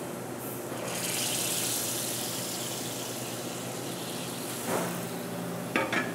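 Hot pan sauce (a demi-glace) hissing as it is poured from a sauté pan onto a plate: a brighter liquid hiss starts about a second in and fades over a couple of seconds, over the steady hiss of a restaurant kitchen. A few light knocks of the pan or utensil come near the end.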